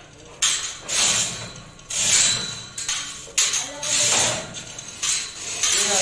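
Manual chain hoist (chain block) hauled hand over hand while lifting an escalator truss, its chain rattling and clinking in repeated bursts about once a second.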